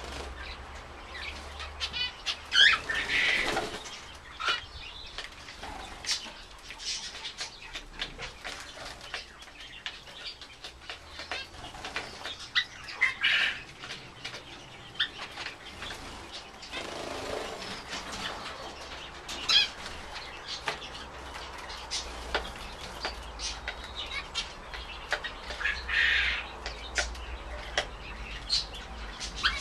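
Zebra finches calling now and then, a handful of short calls with the loudest about three seconds in, over frequent small clicks and flutters of the birds pecking millet and hopping about the feeding dish.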